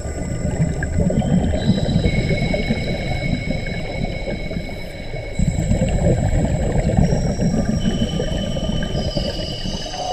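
Underwater rumble of scuba divers' exhaust bubbles. Several steady high tones, like a soft electronic music pad, sound over it, each held for a few seconds and changing pitch in steps.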